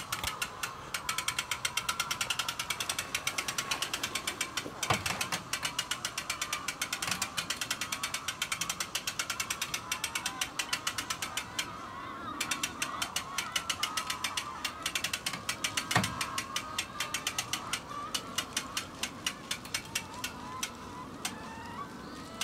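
Ratchet of a hand-cranked winch on a mobile hen coop, clicking rapidly and evenly as it is wound to open the hens' doors. The clicking breaks off briefly near the middle, and two louder knocks come through, one about five seconds in and one near sixteen seconds.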